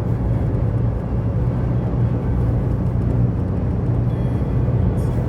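Car driving along a highway: a steady low rumble of engine and road noise.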